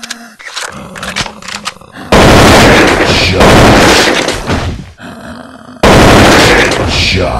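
Gunfire sound effects. A few sharp clicks come first, then a very loud, dense burst of shots starts suddenly about two seconds in. It breaks off just before five seconds and starts again about a second later.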